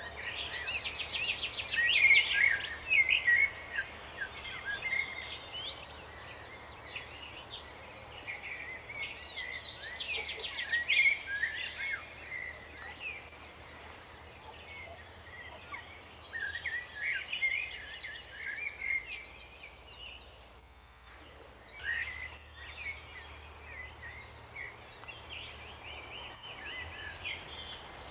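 Several songbirds singing at once, with overlapping chirps and phrases and two fast, rattling trills, one at the start and one about ten seconds in.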